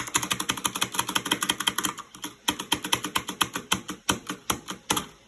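Keystrokes on a mechanical keyboard with silent switches, rapid and dense at first, then slower, separate strokes from about two seconds in: the space bar pressed over and over, with no rattle.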